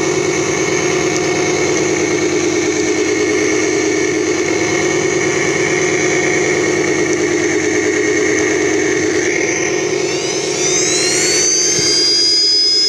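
Traxxas TRX-4 Sport RC crawler's electric motor and geared drivetrain running with a steady whir. About ten seconds in, a high whine rises in pitch and then holds steady as the motor spins up.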